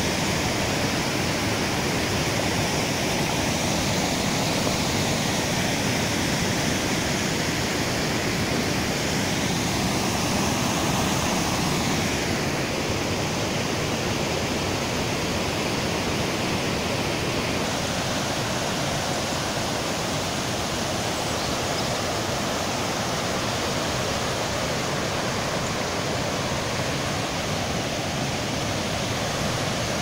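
Snowmelt-fed mountain river rushing over rocks and white-water cascades, a steady, even noise of running water.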